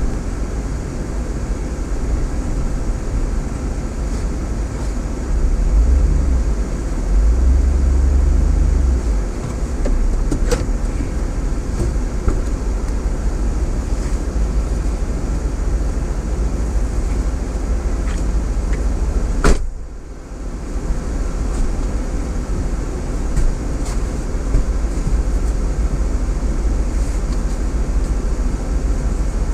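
Cadillac Escalade SUV running, heard from inside the cabin: a steady low rumble of engine and road noise that swells heavier for a few seconds early on. A single sharp click comes about two-thirds of the way through.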